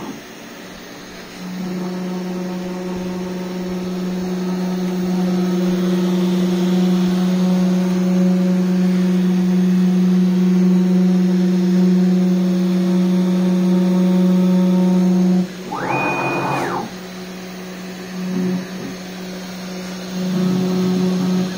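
Home-built CNC router running on a test engraving: a steady low machine hum. About sixteen seconds in, a brief whine rises, holds high, then falls, and the machine runs quieter and more unevenly after that.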